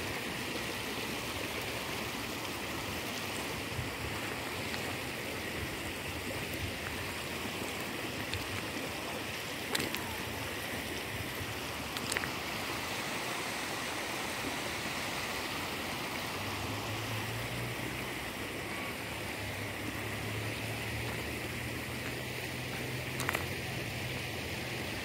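Steady rushing of muddy rain runoff flowing over rocks in a stream bed that had been dry before three days of rain, with a few brief clicks. A low hum joins about two-thirds of the way through.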